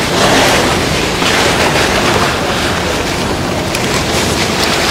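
Fabric rustling and rubbing right against a clip-on microphone as a lightweight pair of track pants is handled: a loud, rough hiss that swells and eases.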